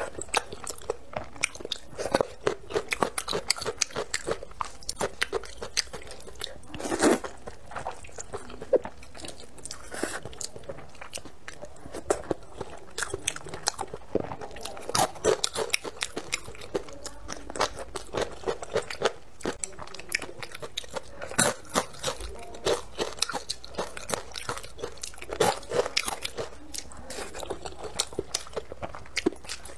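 Close-miked eating sounds: spicy vermicelli noodles being slurped and chewed, with frequent short crunches and wet mouth clicks and a few longer, louder slurps.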